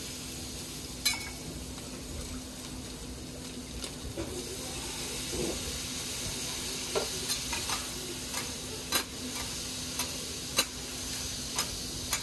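Offal (horumon) sizzling as it is stir-fried on a hot cooking plate, a steady hiss broken by sharp metal clicks and taps of utensils on the plate. The taps come every second or so, more often in the second half. A faint steady hum runs underneath.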